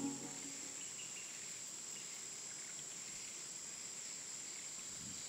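Faint outdoor forest ambience: a steady, high-pitched insect drone, with a few faint short chirps.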